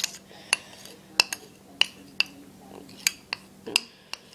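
Spoon clinking against the bowl while stirring melted chocolate, sharp irregular clinks about every half second.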